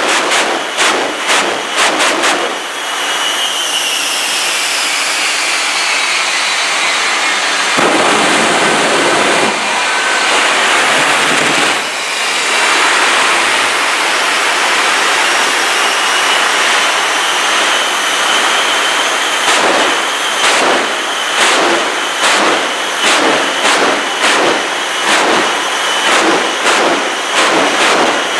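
Three jet engines of a jet-powered semi truck running loudly, with a rapid series of pops at first. The pops give way to a steady roar whose whine falls, then climbs again, and a second string of pops begins about two-thirds of the way through.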